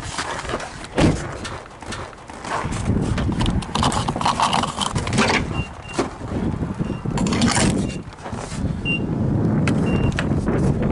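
Several short, high electronic beeps at one pitch from a gas pump's button panel, spread through the second half. Underneath are steady rustling and a few sharp clunks.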